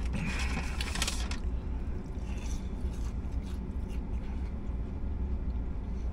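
A paper fast-food bag rustling and crinkling for about the first second and a half, over a steady low hum in a parked car's cabin.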